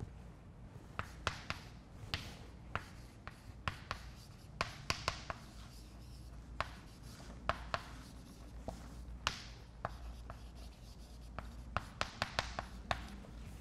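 Chalk writing on a chalkboard: irregular sharp taps of the chalk striking the board, with short scratchy strokes between, over a faint low room hum.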